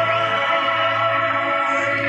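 Music with singing held on long, steady notes.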